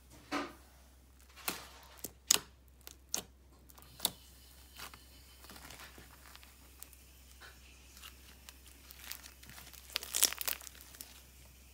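Crunchy glue slime with small beads mixed in, squeezed and pressed by hand: scattered crackles and snaps, a few sharper ones in the first four seconds and a cluster again near the end.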